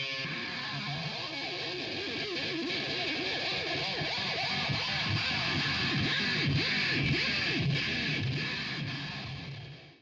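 Music led by electric guitar, fading out near the end.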